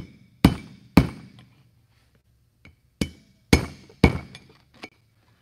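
An all-metal hammer striking a screwdriver used as a drift to drive the old inner bearing race out of a GM brake rotor hub. Sharp steel-on-steel blows with a short ringing tail: three quick ones, a pause of about a second and a half, then four or five more.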